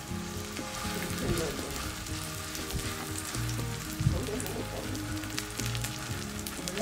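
Seafood pajeon batter sizzling in hot oil in a cast-iron pan as it is poured in and spread with a metal ladle. There is a sharp knock about four seconds in.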